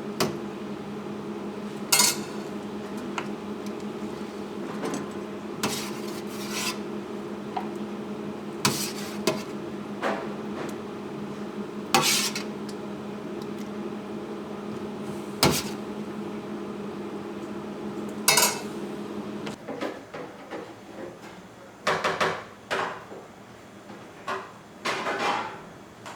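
Dishes and cutlery clattering in a series of scattered sharp clacks, over a steady appliance hum that cuts off about twenty seconds in.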